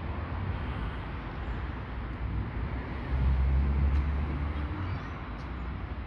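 Steady low rumble of street traffic, with one vehicle's engine hum swelling louder for a second or two a little past the middle, then fading.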